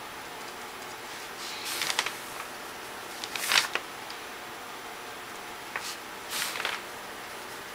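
Art supplies being handled: four short rustling scrapes with a few small clicks, the loudest about three and a half seconds in, over a steady faint hiss.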